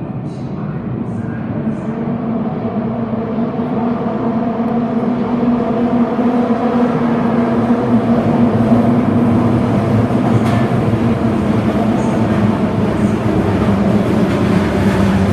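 Osaka Metro 22 series subway train running, a steady low hum with the rumble of the cars, growing louder over the first half and then holding steady.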